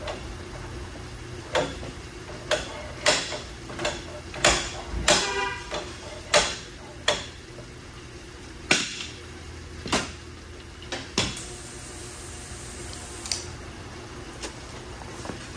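Irregular sharp metal knocks and clanks, about a dozen, during body-shop frame-pulling work on a van; one about five seconds in rings briefly with a pitched tone. A steady low hum runs underneath.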